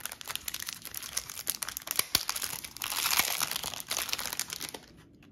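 Thin plastic packaging bag crinkling and rustling as it is handled and a clear plastic compartment case is pulled out of it, with one sharper click a little after two seconds in. The crinkling stops suddenly near the end.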